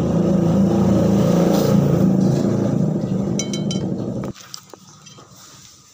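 A motor vehicle's engine running steadily, cutting off suddenly about four seconds in.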